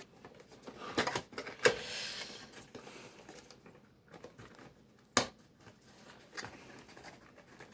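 Hands handling and opening a cardboard toy box: soft rustling with a few sharp clicks, the loudest about five seconds in.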